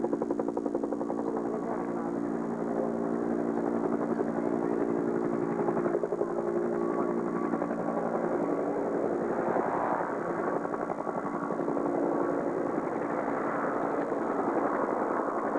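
Huey-type (Bell UH-1) helicopter flying past, its rotor blades beating rapidly and steadily over a droning engine tone.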